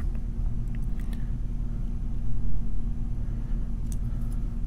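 A steady low hum, with a few faint small metallic clicks and taps from tools working on a brass padlock.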